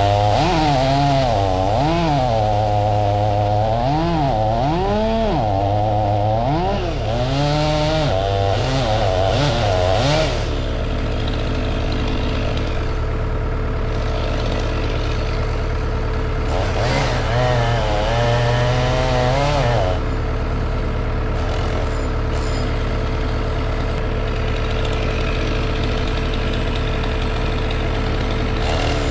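Stihl MS 500i two-stroke chainsaw running, its pitch repeatedly rising and dropping as it is revved and loaded in the cut for about the first ten seconds. After that it settles into a steadier drone, with one more brief rev in the middle.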